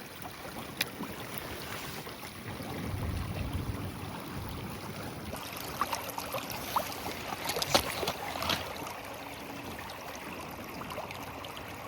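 Mountain river water running and splashing, with wind buffeting the microphone. A few sharp clicks and knocks stand out, mostly between about six and nine seconds in.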